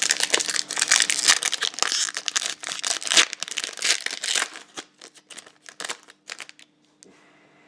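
A trading card pack wrapper being torn open and crinkled, dense crackling for about four seconds, then a few scattered clicks as the handling tapers off and stops.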